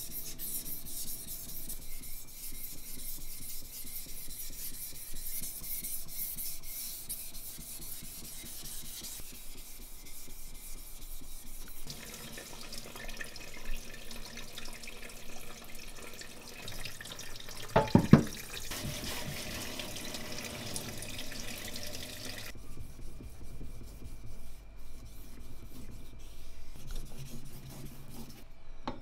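Steel knife blade rubbed back and forth on wet Japanese whetstones: gritty, rasping sharpening strokes, with sink water running part of the time. A short cluster of sharp knocks comes about two-thirds of the way through.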